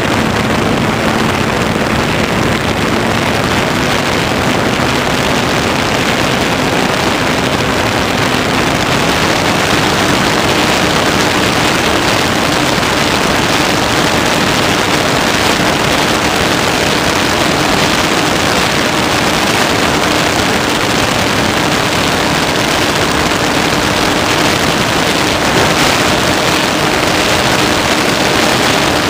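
Multiplex Easy Glider Pro's electric motor and propeller running under power, heard from a camera on board the model. The motor's steady hum rises slightly in pitch over the first several seconds and then holds, under loud rushing airflow.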